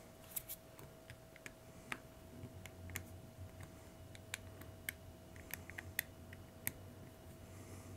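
Faint, irregular small clicks and ticks of a precision tri-wing screwdriver turning the tiny back screws of a Samsung Gear Sport smartwatch, metal tip catching and slipping on the screw heads.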